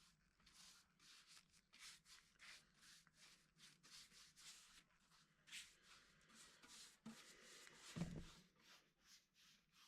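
Faint repeated rubbing strokes on the desk's wooden surface, about two a second, with one low thump about eight seconds in.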